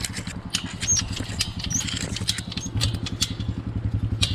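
Utility vehicle's engine idling steadily, with a string of sharp clicks and clinks over it.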